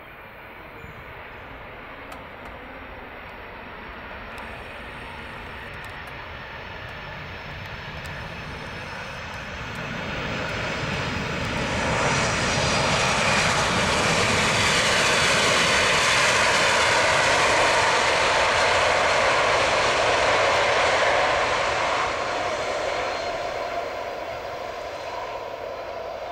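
Boeing 767-300(ER) jet engines roaring during the landing rollout just after touchdown. The roar builds steadily, swells sharply about halfway through into a loud, hissing roar as the airliner rolls past, then fades toward the end.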